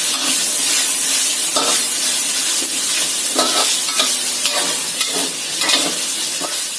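Chicken pieces and shallots sizzling in hot oil in a wok, with a metal spatula scraping and turning them in repeated strokes.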